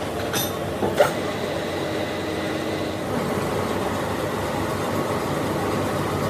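Metalworking machinery running steadily, with a dense rumbling noise. There is a sharp metallic knock about a second in.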